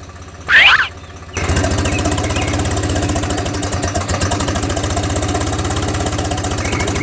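A tractor-type engine starts abruptly about a second and a half in and then idles steadily, with fast even pulses over a low hum.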